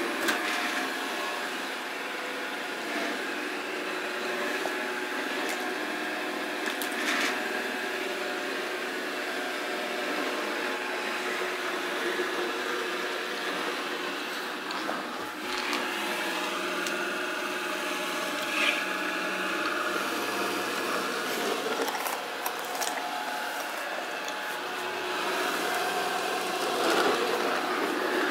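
Samsung SR8751 robot vacuum running: a steady hum of its suction fan and brush motors, with a few short knocks and clicks scattered through it.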